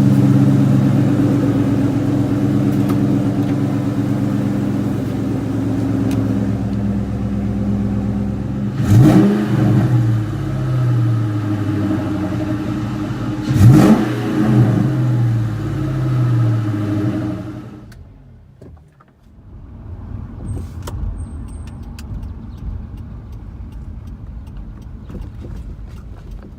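2003 Ford Mustang Mach 1's 4.6-litre V8 idling, with two quick blips of the throttle about nine and thirteen seconds in. About two-thirds through the engine sound drops away sharply, leaving a much quieter low rumble.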